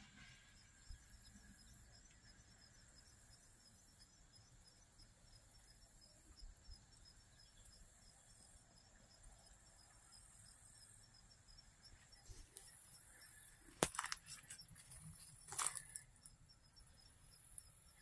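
Near silence outdoors, with faint high-pitched insect chirping repeating in quick, even pulses throughout. Near the end there is a sharp click, followed about two seconds later by a short rustle.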